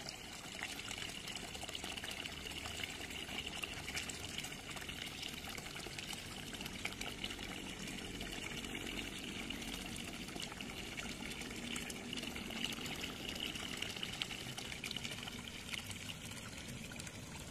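Goldfish crowding and thrashing at a pond's surface, making a steady trickling, splashing water noise full of many small splashes.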